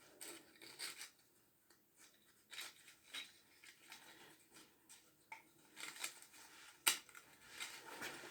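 Handling of a power-tool kit's parts and packaging: soft rustling and scattered light clicks, with one sharp click about seven seconds in.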